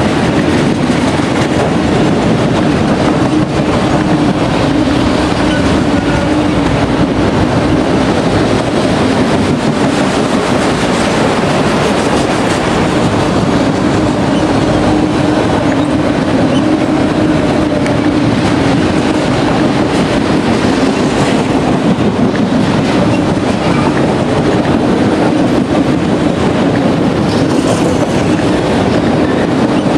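Freight train cars rolling past: a steady rumble of steel wheels on rail, with a faint steady tone running underneath.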